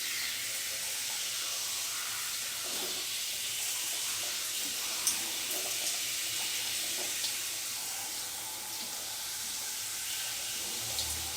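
Steady hiss of falling rain, with a few brief sharp ticks of drops.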